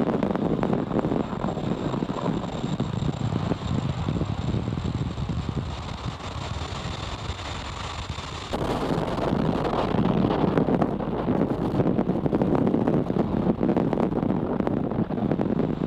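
Falcon 9 first-stage booster's Merlin engines heard through the onboard feed: a steady rushing rumble that turns suddenly louder and fuller about eight and a half seconds in, as the entry burn lights.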